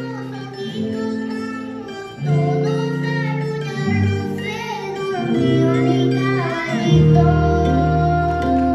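Colombian folk music playing: plucked strings over held chords that change about once a second, with a singing voice.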